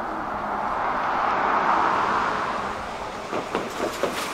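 Empty freight cars of a CSX local train rolling past on the rails: a steady rolling noise that swells a second or two in, then a run of sharp clacks from the wheels near the end.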